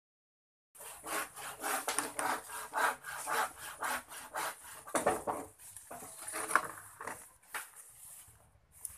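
Hand saw cutting a bamboo pole: rasping back-and-forth strokes about two a second, starting about a second in and turning slower and irregular about halfway through.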